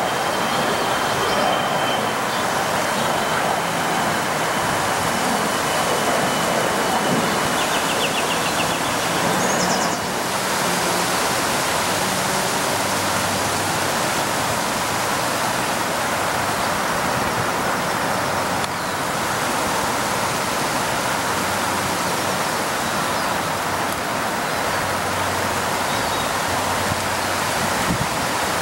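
Steady rushing noise, even and without a rhythm, with a faint thin high whistle through roughly the first ten seconds.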